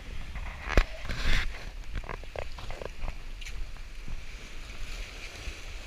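Wind buffeting the camera's microphone in a steady low rumble, with a sharp knock a little under a second in and a few short faint sounds after it.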